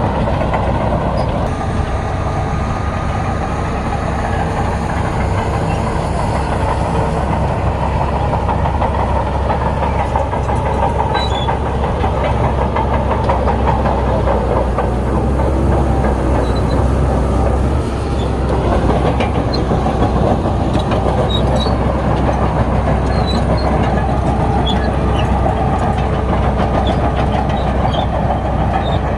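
Bulldozer's diesel engine running steadily under load, with the clanking clatter of its steel crawler tracks. It eases briefly about eighteen seconds in.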